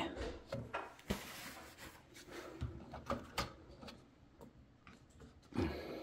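Faint, scattered clicks and knocks of hand-handled hardware as a screwdriver is picked up and brought to the lock panel, with one sharper click about a second in and a louder knock near the end.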